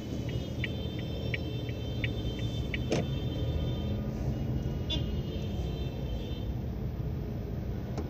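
Car driving slowly in heavy traffic: steady engine and road rumble, with a fast regular ticking of about three a second over the first three seconds, a sharp knock about three seconds in, and a brief high horn toot about five seconds in.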